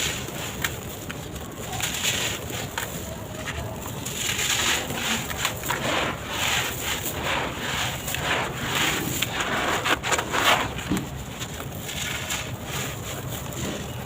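Dry sand-cement blocks being crushed and crumbled in a tub: gritty crunching with many small irregular cracks, busiest in the middle of the stretch.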